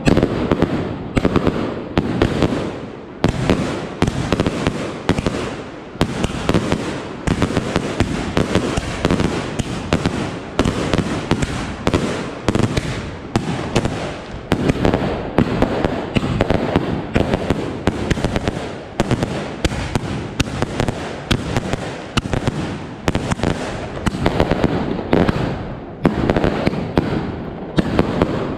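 T-Sky CT5004902 49-shot firework cake firing shot after shot, each shell breaking in the air as a triple break of two salute bangs and one colour burst. The result is a rapid, unbroken string of loud bangs.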